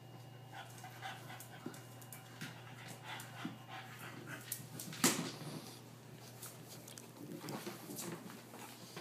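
Bulldog panting while prying up the hinged plastic lid of a pet-food bin with its mouth, with scattered plastic knocks and clicks and one sharp clack about five seconds in.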